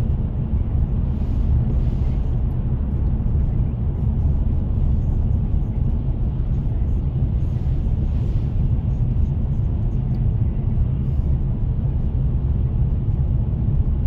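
Steady low rumble of a car heard from inside its cabin: engine and tyre noise, with no change in pitch or level.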